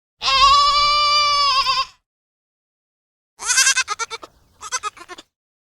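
Bleating from a sheep or goat: one long, steady bleat, then after a pause two shorter, quavering bleats.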